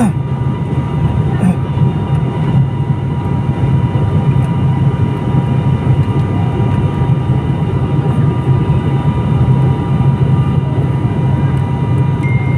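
Airliner cabin noise on the approach to landing: the steady low rumble of the jet engines and rushing air, with faint steady whining tones above it.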